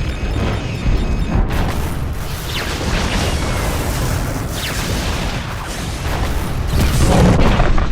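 Animated sci-fi sound effect of a huge explosion: a long, heavy rumbling blast with several further bursts through it, the Rhydonium-laden cruiser blowing up.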